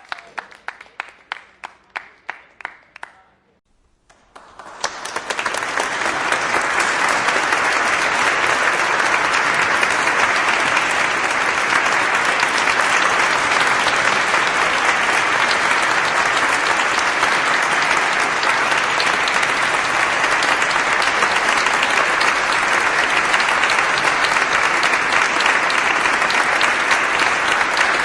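Applause: a few people clapping, about four claps a second, dying away. After a brief silence about four seconds in, a large crowd's dense applause swells up and holds steady.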